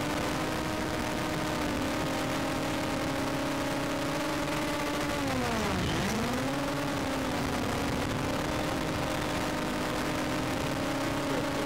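A steady motor hum with several overtones; about halfway through its pitch dips sharply and swings back up within about two seconds.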